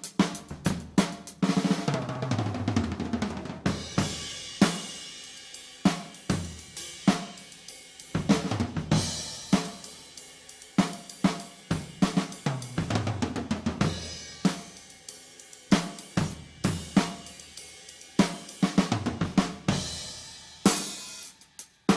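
Mid-1970s Ludwig Quadra-Plus melodic tom kit played with no muffling: beats on the 26-inch bass drum, deep Ludwig Black Magic snare and cymbals, broken by fills that run down the toms from high to low, each tom ringing on long.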